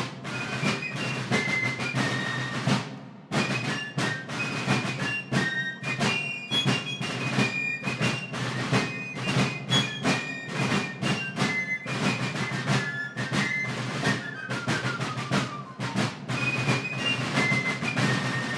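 Fife and drum corps music: fifes playing a marching tune in high melodic lines over rapid, steady snare drum strokes.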